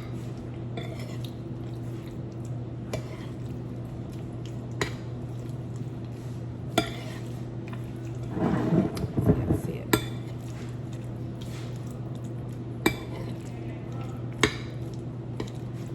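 Eating utensil clicking against a plate several times during a meal, with a denser cluster of scraping noise about eight to nine and a half seconds in. A steady low hum runs underneath.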